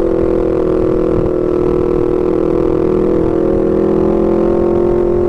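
Honda CBR250RR engine with an R9 GP racing exhaust running at steady revs, a loud even engine note holding one pitch while the motorcycle cruises.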